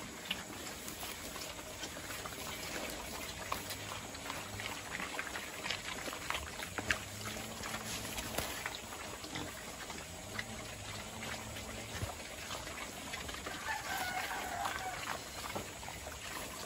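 Native pigs eating at their trough: a steady run of small wet crunching and smacking sounds.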